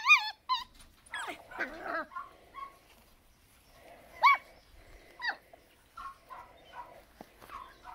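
Schnauzer puppies yipping during rough play: short, high-pitched yips and whines, one at the start, a quick cluster about a second in, and single sharp yips about four and five seconds in.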